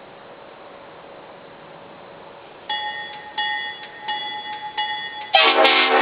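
A Leslie RS5T five-chime locomotive air horn, freshly restored, blows a loud full chord that starts suddenly near the end. Before it there is a faint hiss, then a short ringing tone that repeats about every 0.7 s.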